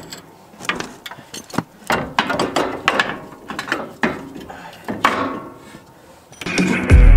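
Hand tools working on metal on the truck's front suspension: irregular sharp clicks and short runs of rapid ticks, as when a wrench is worked on the strut bolts. Music with guitar comes in near the end.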